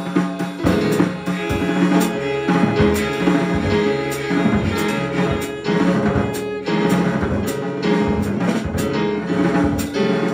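Live trio music: a drum kit played with frequent sharp strikes and cymbal hits over sustained, held string tones from a Korean zither.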